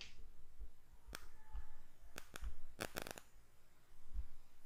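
Scattered clicks and taps of a computer mouse and keyboard, several in quick pairs.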